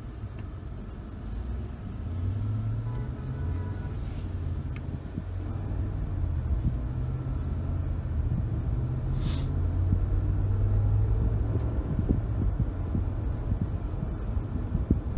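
Car engine and road noise, a steady low rumble that gets louder about two seconds in and again from about six seconds, with a short hiss about nine seconds in.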